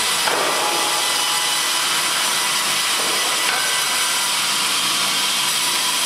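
A Fimaksan log-processing machine's rotating cutter head chipping wood off the side of a log, a steady, dense cutting noise with no pauses.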